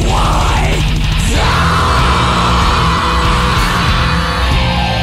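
Thrash metal recording with distorted electric guitars and drums. Steep sliding high notes in the first second give way to one long held high note that fades near the end.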